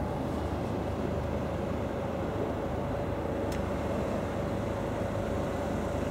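Steady mechanical hum: a low rumble with a held mid-pitched tone over it, even throughout, with one brief faint tick about three and a half seconds in.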